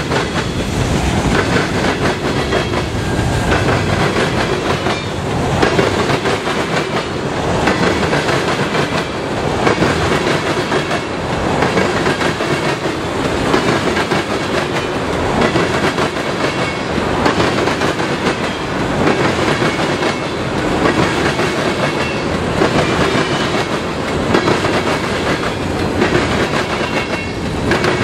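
Freight train's covered hopper and tank cars rolling past close by: a steady rumble of steel wheels on rail with repeated clickety-clack over the rail joints, swelling and easing as the cars go by.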